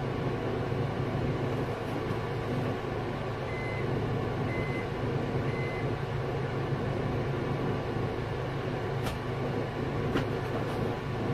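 Steady low drone of a moving vehicle, with three short high beeps about a second apart a few seconds in.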